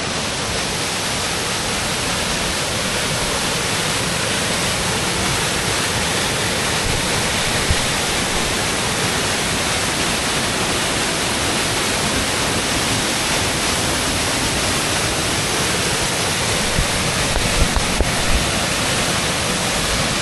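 Steady rushing of a waterfall pouring down a rock face into a pool, together with the water of its stream running over rocks.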